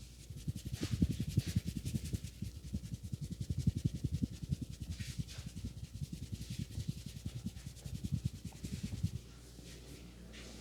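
A barber's hands giving a fast head massage: quick, even strokes of hands on head and skin, about six a second, that stop about nine seconds in.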